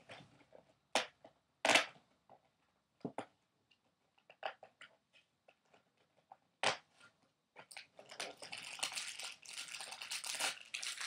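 Opening a Lego advent calendar's packaging: a few sharp clicks and taps, then from about eight seconds in a dense stretch of crinkling and tearing.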